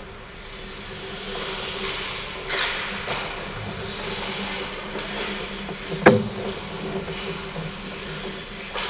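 Ice hockey play close to the goal: skates scraping and sticks and puck clacking on the ice over a steady rink hum, with one sharp, loud crack about six seconds in.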